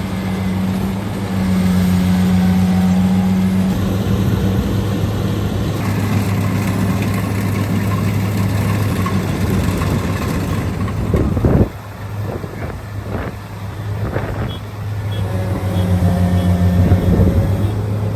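Rice combine harvester's diesel engine running steadily under load while the machine is bogged down in mud. About eleven and a half seconds in, the engine sound drops sharply and a few sharp knocks are heard, and it comes back strong a few seconds later.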